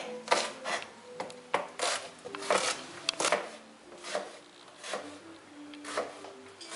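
A kitchen knife chopping and scraping diced shallots on a plastic cutting board, in short, irregular strokes that come further apart toward the end.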